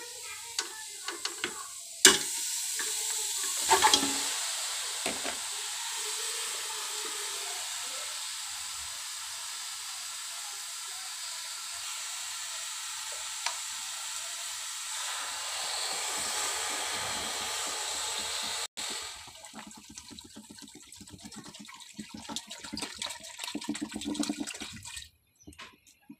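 Water running steadily into a steel pot of raw mutton pieces. It starts with a sharp knock about two seconds in and cuts off abruptly about two-thirds of the way through. Scattered light clicks and knocks follow.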